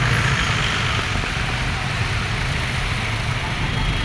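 Busy street traffic: the engines of cars, minibuses and motorcycles running and idling in a steady, even wash of road noise.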